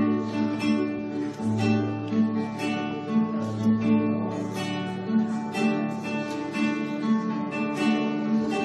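Background music: an acoustic guitar picking slow, ringing notes over a low bass note that changes every couple of seconds.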